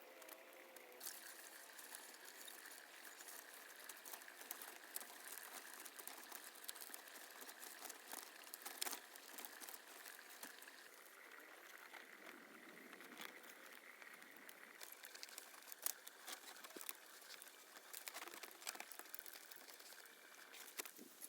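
Near silence with faint scattered clicks and rustling.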